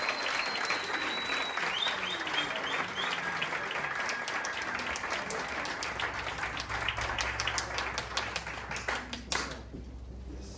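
A crowd applauding. Dense clapping stops abruptly near the end.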